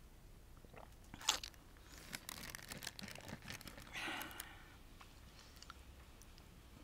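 Close-miked chewing of sweet and sour fish with rice: wet mouth clicks and crunches, with a sharp click about a second in and a denser run of clicks a little after two seconds.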